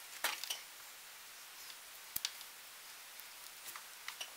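Light clicks and taps of small screws and plastic tail rotor parts of a Blade 400 RC helicopter being handled with a small screwdriver: a short cluster of clicks just after the start, a single sharp click about two seconds in, and a few light ticks near the end.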